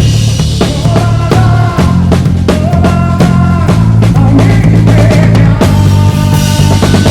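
Band music: a drum kit keeps a steady beat with bass drum and snare under held bass notes, while a higher melodic line plays on top.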